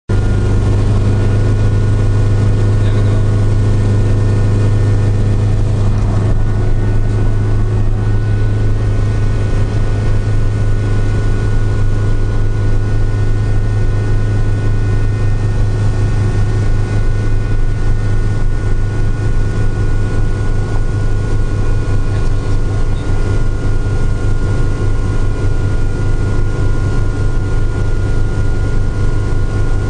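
Helicopter in flight: a loud, steady drone of rotor and engine with the fast beat of the blades and a thin steady whine above it.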